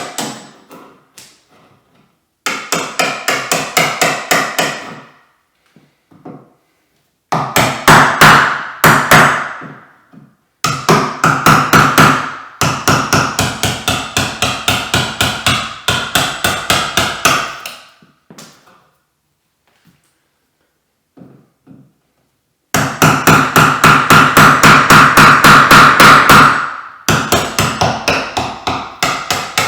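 A small hammer tapping a wood chisel in quick, light strikes, about five a second, in several runs of a few seconds with pauses between: chopping out a hinge mortise.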